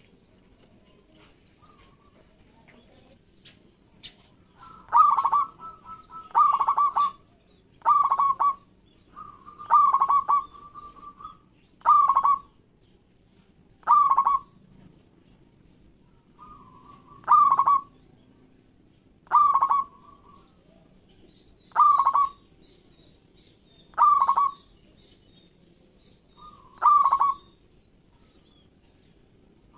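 Local zebra dove (perkutut) singing: a run of short, loud cooing phrases, about one every two seconds, starting about five seconds in. Some phrases open with a softer lead-in note before the main coo.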